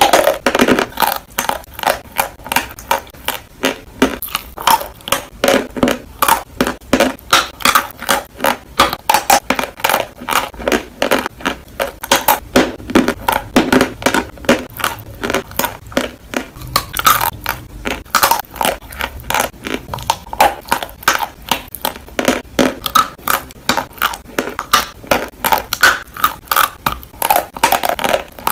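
Close-miked crunching and chewing of dry chalk in the mouth: sharp, crisp bites about three times a second, steady throughout.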